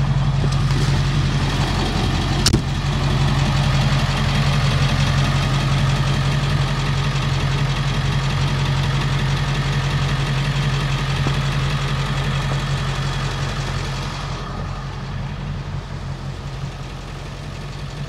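Converted ambulance truck's engine idling steadily, with one sharp click about two and a half seconds in; the sound grows fainter near the end.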